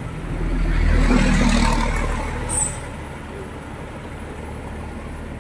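Highway traffic: a vehicle passes close by, its low rumble swelling and fading over about two seconds, with a brief high hiss just after. A quieter, steady rumble of trucks further along the road follows.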